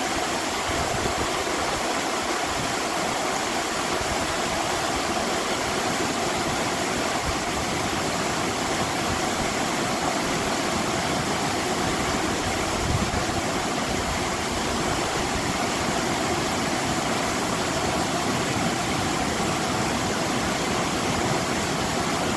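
Stream water flowing steadily, with a continuous murmur that stays even throughout.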